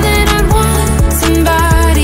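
Background pop song in a rhythm-and-blues style, with a steady beat, deep bass and a gliding melody line.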